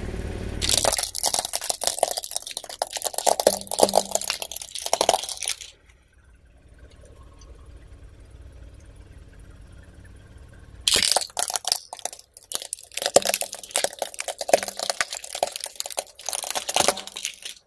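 Hard plastic toys cracking and crunching under a car tyre: a dense run of snaps and crackles for about five seconds, a quieter stretch of about five seconds, then another run of cracking that stops abruptly near the end.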